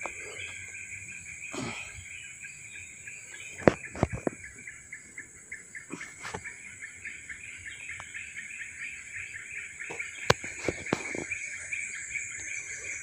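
A steady chorus of insects with a fast, continuous high chirring trill. It is broken by a few sharp clicks and rustles from someone walking through undergrowth.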